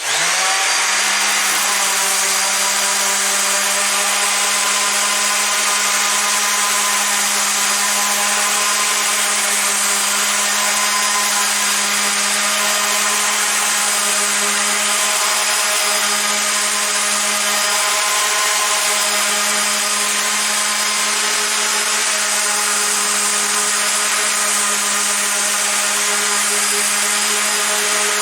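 Mac Allister SOS300 300 W corded random orbital sander running steadily on wood with 180-grit paper: a constant motor hum over the hiss of the abrasive rubbing the board. It comes up to speed right at the start.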